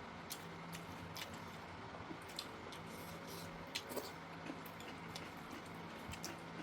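Close-miked eating sounds: scattered soft wet clicks and smacks of chewing and mouth noises, over a faint steady hum.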